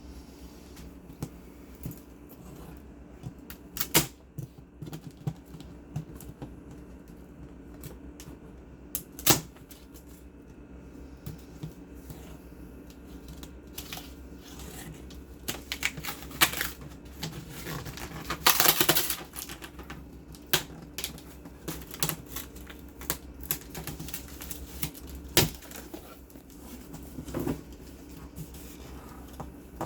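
Cardboard box and packaging being handled while unpacking a PC case: scattered clicks, taps and knocks, with a longer scraping rustle about two-thirds of the way through.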